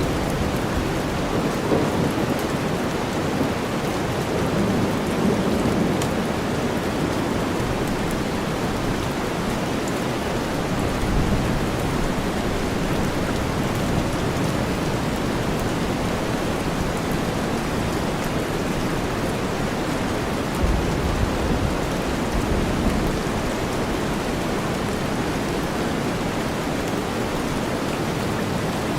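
Steady rain mixed with deep white noise, an even hiss throughout. A low thunder rumble swells a few seconds in and comes again about two-thirds through.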